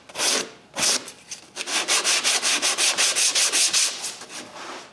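Hand sanding a wooden piece with sandpaper: a few slow separate strokes, then quick back-and-forth strokes about five a second that ease off near the end.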